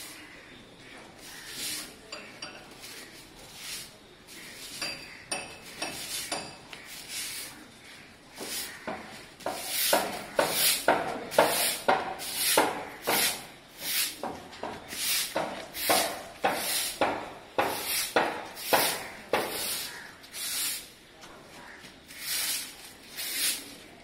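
Grass broom sweeping a concrete yard: scattered strokes at first, then a steady run of about two swishes a second from about nine seconds in.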